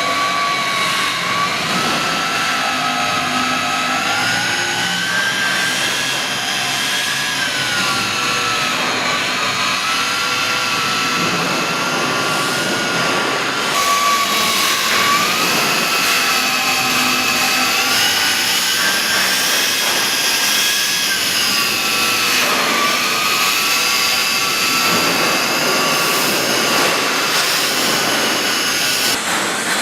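Angle grinder with a Combo Ferro attachment sanding an inside fillet weld on stainless steel. The motor runs continuously with a whine that drifts up and down in pitch as the load on it changes, over a steady abrasive hiss.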